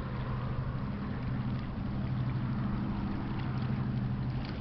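Pusher tug's diesel engines running with a steady low drone as the tug and barge pass close by.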